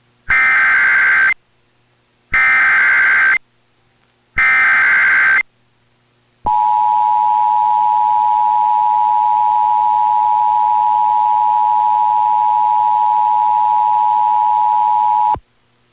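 Emergency Alert System activation tones, signalling a severe thunderstorm warning. First come three SAME header bursts, each about a second long of rapid digital data noise. Then the two-tone attention signal holds steady for about nine seconds and cuts off suddenly.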